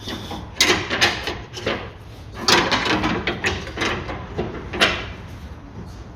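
Irregular knocks and clunks on a car's front suspension, about seven in six seconds, as the lower control arm's ball joint is worked free of the steering knuckle.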